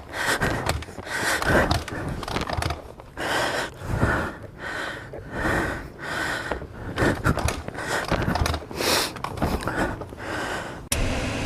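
A person panting heavily from exertion, with quick, loud breaths in and out about twice a second.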